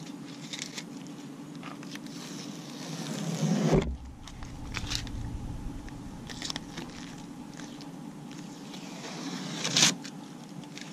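Blue painter's masking tape being peeled off car bodywork and crumpled in the hand. A long tearing rip builds and stops suddenly about four seconds in, then shorter rips and crinkles follow, with a louder one near the end. A steady low hum runs underneath.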